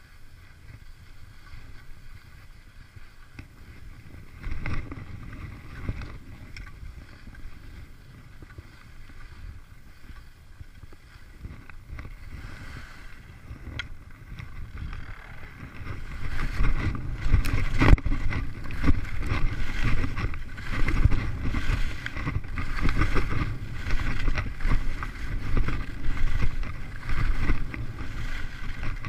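Skis sliding and scraping on packed snow, with wind on the microphone. The noise grows much louder just past halfway, with short, uneven scrapes as the skier heads downhill.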